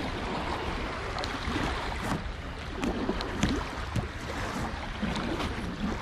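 Water lapping and splashing around a kayak on open water, with wind on the microphone and scattered small knocks.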